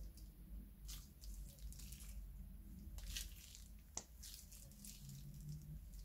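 Slime being squeezed and handled: faint wet squishing with small crackles and pops, and one sharp click about four seconds in.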